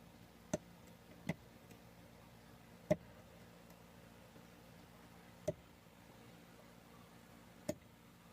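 Five sharp, irregularly spaced clicks from a gun cable lock being picked with a hook pick and tension wrench, with faint steady background hiss between them.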